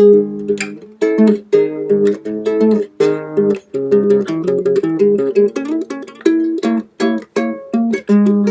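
Background music played on a plucked string instrument, a light melody of quickly picked notes, each one fading fast.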